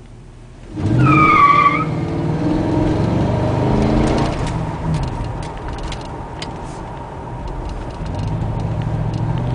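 1994 Buick Roadmaster's LT1 V8 with Summit Turbo mufflers launching hard: a brief tire squeal about a second in over the engine revving up. The engine then pulls on, its pitch climbing, dipping near the middle and climbing again.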